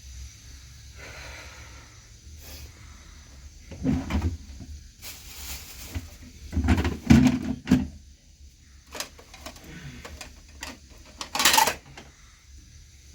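Several irregular knocks and thuds, as of objects being handled or set down, loudest in clusters about four, seven and eleven and a half seconds in.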